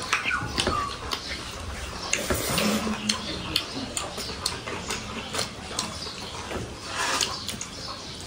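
Close-up eating sounds of people eating rice with their hands from metal plates: chewing and mouth smacks with many small irregular clicks. A brief low hum comes about two and a half seconds in.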